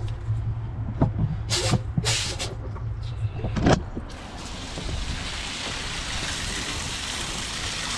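A few knocks of handling, then from about four seconds in the steady hiss of a boat's washdown nozzle spraying a jet of water onto the water's surface. The washdown pump is being run on fresh water from a garden hose to flush the salt water out of it.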